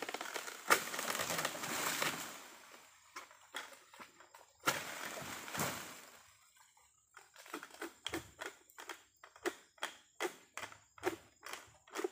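Oil palm fronds rustling and crackling as a long-poled harvesting sickle (egrek) is worked up among them, in two long bursts over the first six seconds. These are followed by a string of short dry clicks about twice a second.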